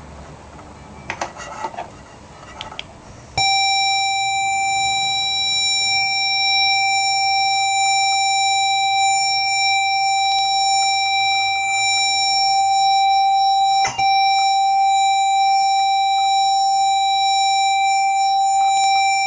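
A few computer-keyboard clicks, then about three seconds in a loud, steady square-wave tone starts and holds, with one brief break partway through. It is the Apple II cassette-format leader tone of a program recording (Moire) played from an AIFF file into the Apple IIe's cassette input, the header that marks the start of a tape load.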